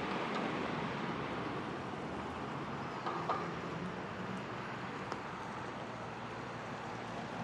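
Steady outdoor ambient noise of wind and distant vehicles, with a brief faint tone about three seconds in.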